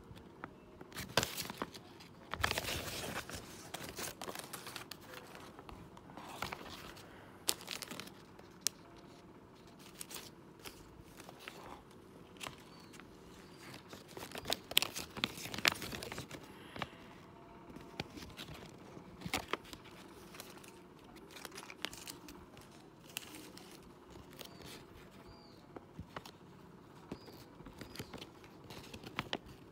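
Folded paper leaflet rustling and crinkling as it is handled and unfolded, with scattered small clicks and taps; the rustling is busiest about a second in and again around the middle.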